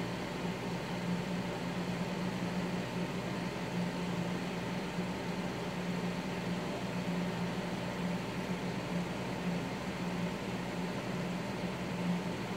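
Steady low hum under an even hiss of background room noise, unchanging throughout.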